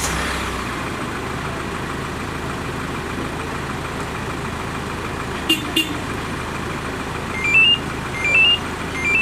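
Hyundai Porter II engine idling steadily just after a remote start. Two quick clicks come about five and a half seconds in, then a short rising electronic chirp sounds three times near the end: the alarm's notification tones that the remote start has gone through.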